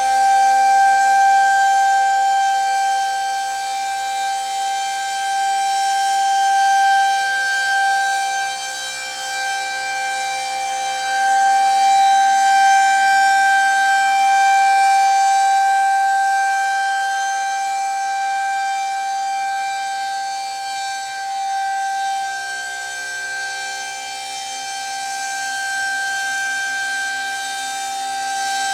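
Federal Signal 2001-130 rotating electromechanical tornado siren sounding its steady Alert tone: one held, unwavering pitch that slowly swells and fades in loudness every ten seconds or so as the siren head turns.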